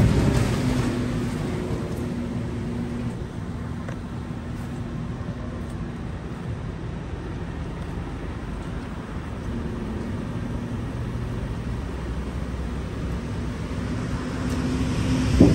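Refuse truck's engine running steadily, with a low hum that swells and fades a few times. A loud clank comes right at the start and another near the end.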